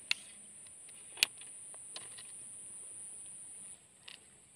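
A few sharp clicks from the fishing tackle as a hooked climbing perch is swung in on the line, over a steady high insect buzz that stops nearly four seconds in.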